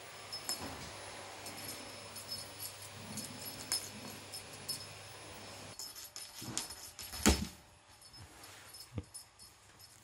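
A cat playing with a feather toy on a wooden floor: scattered small clicks and rustles, with one louder thump a little past the middle.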